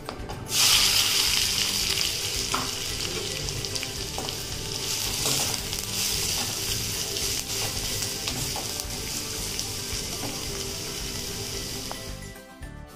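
Onion dropped into hot oil with peppercorns and cumin seeds, sizzling hard as it fries. The sizzle starts suddenly about half a second in and dies down near the end.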